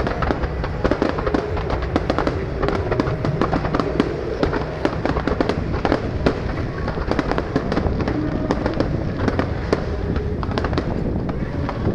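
Fireworks display going off continuously: a dense run of bangs and crackles over a steady low rumble of booms.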